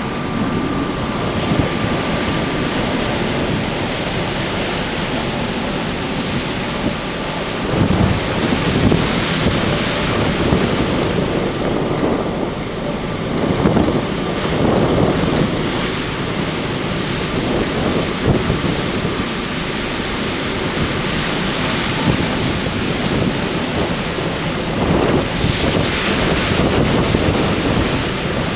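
Strong wind buffeting the microphone on the open deck of a ferry at sea, over the rush of rough water and the ship's churning wake, swelling in several louder gusts.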